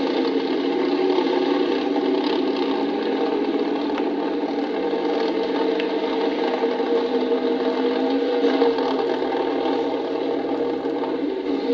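An engine running steadily, a dense even drone without revving or breaks.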